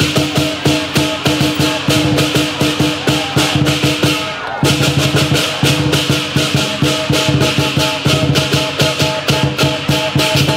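Lion dance percussion: a large drum, clashing cymbals and a gong played in a fast, driving rhythm, with a brief break in the cymbals about halfway through.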